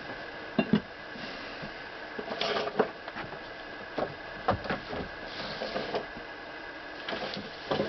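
Irregular knocks, clunks and short scrapes as the Singer 127 sewing machine on its wooden base is handled and turned round on a workbench: two sharp knocks under a second in, a cluster about two and a half seconds in, and more scattered ones later.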